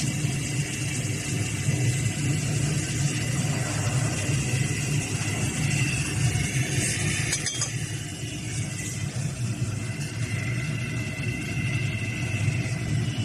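Steady low hum of running industrial machinery, with a faint high whine above it. A single brief knock comes about seven and a half seconds in.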